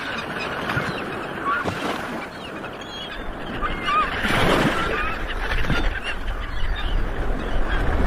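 A flock of gulls calling, many short squawks overlapping at different pitches, over a steady rush of wind and surf; a low rumble of wind on the microphone builds near the end.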